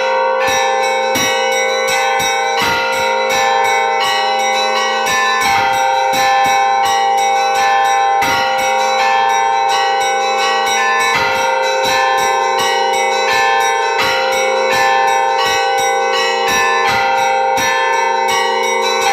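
Church bells ringing a continuous peal: smaller bells struck rapidly, several strikes a second, over the sustained ring of larger bells.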